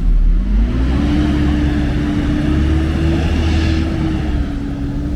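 A motor vehicle's engine running close by over low traffic rumble, its pitch dipping briefly near the start and then rising as it accelerates.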